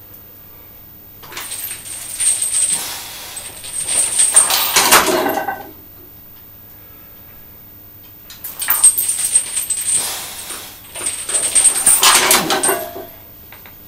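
Steel chains hung on a loaded bench-press barbell rattling and clinking through two reps, as the bar is lowered and pressed back up. Each rep's jangle lasts about four seconds, with a lull between them.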